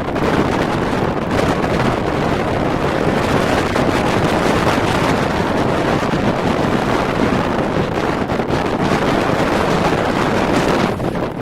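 Hurricane wind blasting across the microphone: a loud, steady rush of noise that eases a little near the end.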